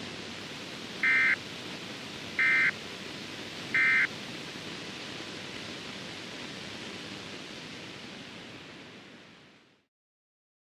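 Emergency Alert System end-of-message signal: three short data bursts about a second apart, over a steady static hiss that fades out about nine and a half seconds in.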